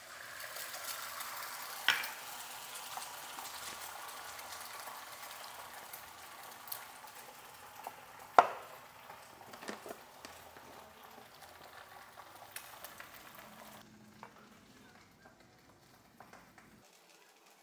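Sausages sizzling in hot oil in a frying pan, with a sharp clack of a utensil against the pan about two seconds in and a louder one about halfway through. The sizzling drops off sharply to a faint one about three-quarters of the way through.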